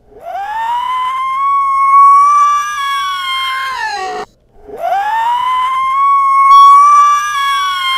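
Two long, loud screeches for a chest-burster alien creature. Each one slides up quickly to a high held pitch and drops away at its end, with a short gap between them.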